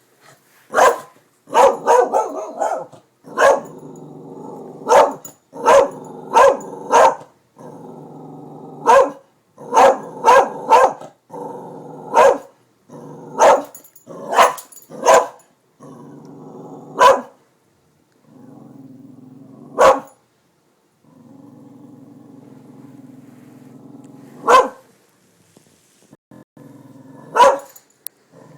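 Dog barking in repeated sharp single barks, with a low continuous growl between them. The barks come in quick runs for the first fifteen seconds or so, then thin out to a few widely spaced barks.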